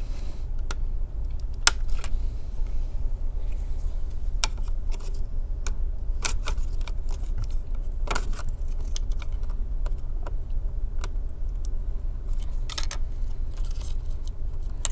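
Scattered small clicks and taps of hands working a cable connector into its socket inside an opened laptop, over a steady low hum.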